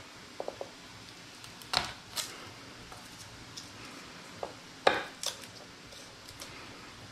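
Chef's knife knocking a few times on a wooden cutting board while garlic cloves are trimmed and set down: short, sharp knocks, the loudest about two seconds in and again about five seconds in.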